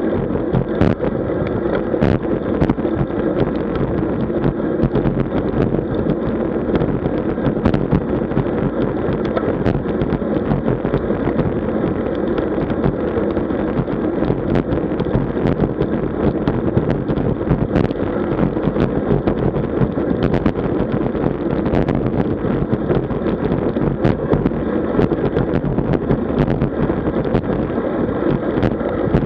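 Wind rushing and buffeting over the microphone of a camera on a moving road bike, a steady loud rush with occasional small clicks or rattles.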